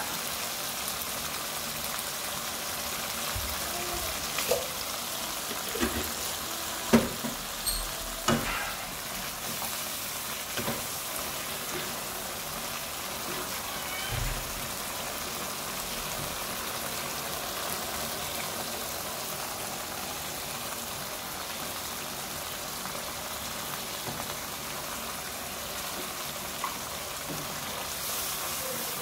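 Tomato sauce sizzling and bubbling in a frying pan: a steady frying hiss. A few sharp knocks come a few seconds in, and the sauce is stirred with a wooden spatula near the end.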